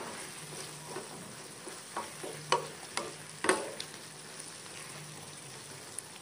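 Beef kidney stew sizzling in a frying pan while a wooden spoon stirs it, knocking sharply against the pan several times in the middle, the loudest knocks about two and a half and three and a half seconds in.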